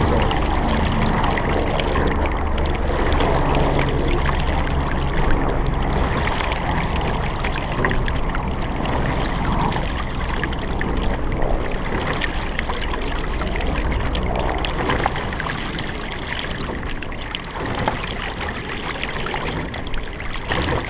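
Water rushing and splashing along the hull of a double sculling shell under way on choppy river water, under a low rumble that eases after about 15 seconds. A few louder splashes stand out every few seconds.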